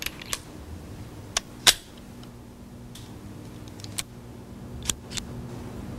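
A revolver being handled: a string of short, sharp clicks and taps, about nine in six seconds, the loudest about two seconds in. A faint steady hum runs underneath.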